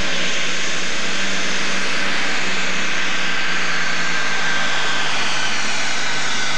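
Allis-Chalmers D21 super stock pulling tractor's 426-cubic-inch engine running flat out under full load as it drags the weight-transfer sled, a loud steady roar with a thin high whine over it. The engine's pitch sags slightly near the end.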